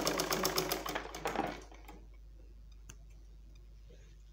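Black mechanical sewing machine stitching at a fast, even rate of roughly ten stitches a second. It stops about a second and a half in, leaving only a faint hum and a single small click.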